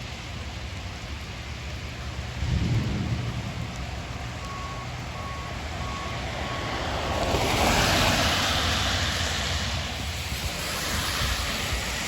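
Storm wind buffeting the microphone with a hiss of wind-driven rain, a gust swelling about eight seconds in. A run of five short, evenly spaced electronic beeps sounds through the middle.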